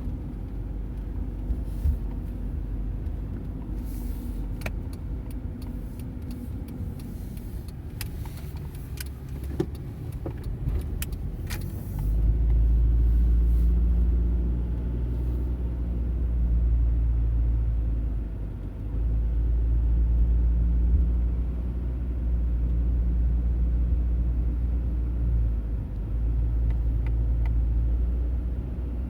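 Cabin sound of a 1995 Honda Accord driving at low speed. Engine and road rumble swells much louder about twelve seconds in and eases off briefly twice, as the car shifts or changes speed. A handful of sharp clicks come in the first ten seconds or so.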